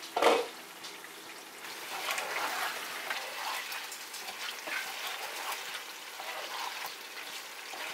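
A wooden spatula stirring a pan of simmering duck and potato curry: wet squelching and scraping with the sauce bubbling and sizzling, after a short loud clunk about a quarter second in.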